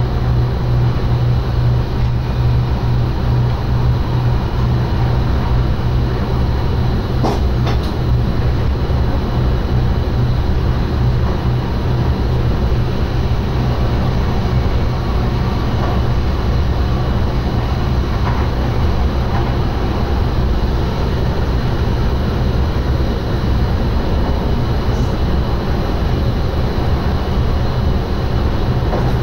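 Inside the driver's cab of an NS SGM Sprinter electric multiple unit running on the line: a steady low rumble and hum, with two short clicks about seven seconds in.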